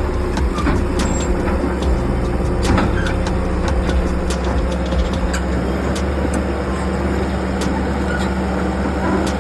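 A heavy vehicle engine running steadily at a constant pitch, with scattered sharp snaps throughout.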